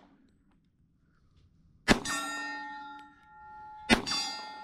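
Two pistol shots about two seconds apart, each followed by a steel target ringing with a clang that lasts over a second after the hit.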